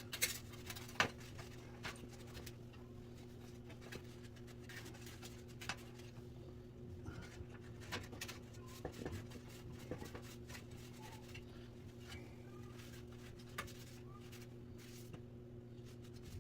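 Paper towel rubbing and scratching as box fan parts are wiped clean, with scattered light clicks and taps as the parts are handled. A steady low electrical hum runs underneath.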